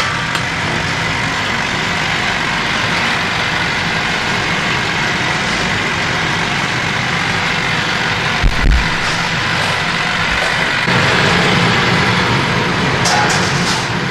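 Steady machine running noise, with one low thump about eight and a half seconds in and a few light clicks near the end.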